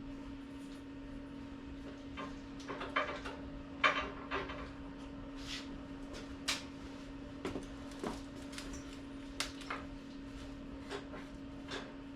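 Scattered light knocks and clinks of tools and steel stock being handled on a workbench, the loudest about four seconds in, over a steady low hum.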